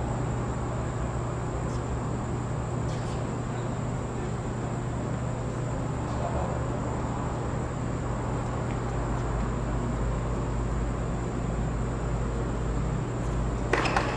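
Steady hiss and low electrical hum of the court's ambient sound, with a quick cluster of sharp tennis-ball knocks near the end.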